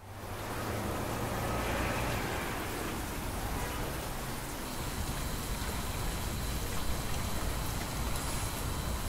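Steady rain, an even hiss with a low rumble underneath, fading in from silence over the first half second.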